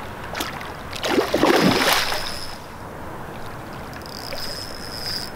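A big hooked catfish thrashing at the water's surface: one loud splash about a second in, lasting a second or so, then quieter lapping water.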